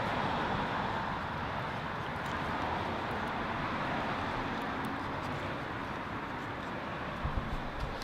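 Steady rushing noise of passing road traffic, slowly fading away.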